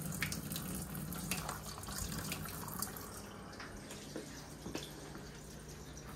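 Kitchen tap running onto a skinned squirrel held under the stream in a stainless steel sink, with irregular small splashes as the hands turn and rub the meat. A low steady hum sits under it.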